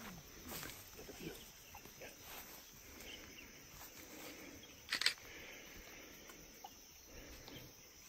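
Undergrowth rustling and crackling as it is pushed through, with one sharp snap about five seconds in, over a faint steady forest background.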